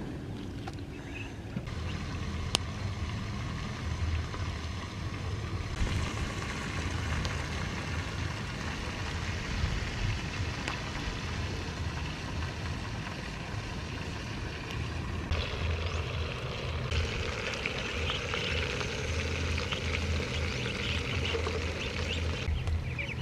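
Food cooking in a large pot over an open wood fire, with a fine crackle that grows stronger near the end, over a steady low rumble. The background changes abruptly several times.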